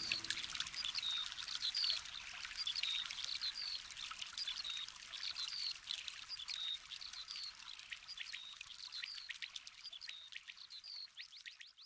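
Small birds chirping in quick, repeated short calls over a faint trickling-water hiss. A flurry of faster notes comes near the end, then it all fades out.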